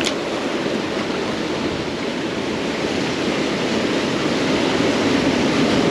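Ocean surf washing against a rocky shoreline: a steady rushing wash that swells a little louder toward the end.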